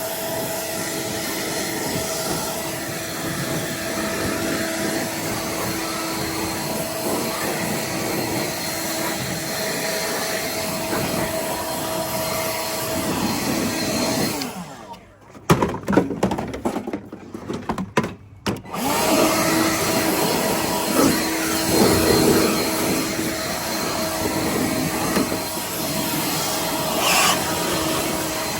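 A blower running steadily, a motor whine over a rush of air, blowing water off a freshly pressure-washed riding mower. About halfway through it drops away and comes back in short choppy spurts, then runs steadily again from about two-thirds of the way in.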